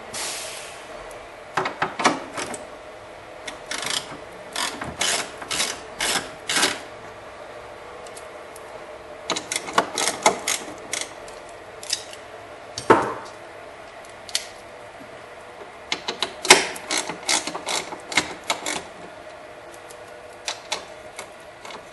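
Hand ratchet wrench clicking in short runs, with pauses between them, as it backs out the screws holding the battery cover bracket.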